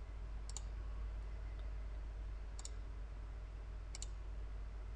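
Computer mouse clicking three times, a second or two apart, over a faint low steady hum.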